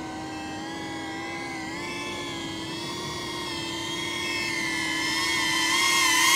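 iFlight Protek 25 cinewhoop's brushless motors and ducted propellers whining steadily, getting louder as the drone flies in low toward the pilot. It is on a nearly drained battery, and faint short beeps of its low-battery alarm come about once a second.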